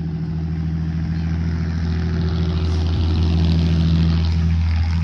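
A steady engine hum that holds one pitch, growing louder toward the middle and then holding.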